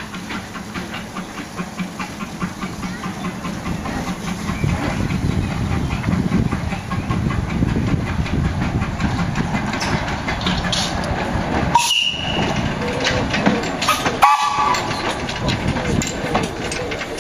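Baldwin 4-6-0T steam locomotive No. 778 on narrow gauge track, running slowly and growing louder as it approaches. Two short high squeals come about two-thirds of the way through.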